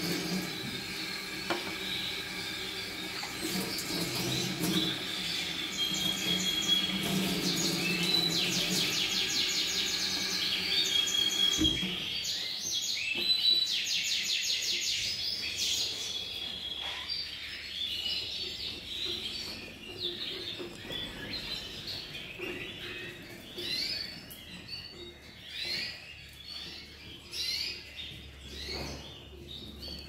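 Many canaries chirping and singing, with fast repeated trills. For the first twelve seconds a running tap splashes water into a steel sink, then it is shut off abruptly.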